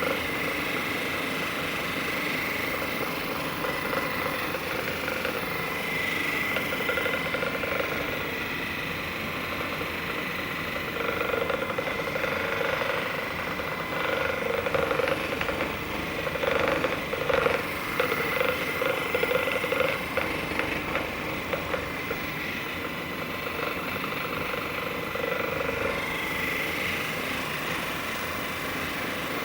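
Handheld percussion massage gun running against a person's back, a steady motor hum with a rapid hammering buzz. It gets louder and more uneven for several seconds in the middle.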